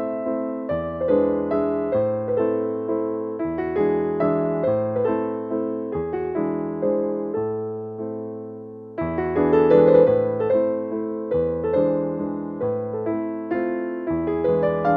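Background piano music: a gentle melody of struck, fading notes over low held bass notes, with the phrase starting again more loudly about nine seconds in.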